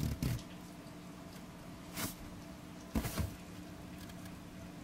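Handling noise from a smartphone being held and moved: a few short soft bumps and rustles near the start, about two seconds in and about three seconds in, over a steady low hum.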